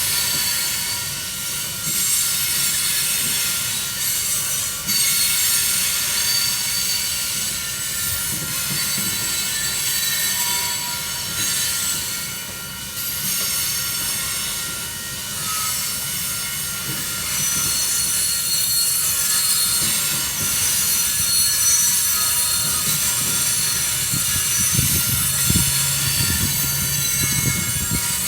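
Union Pacific coal train cars rolling past, steel wheels squealing on the rails over a low rumble.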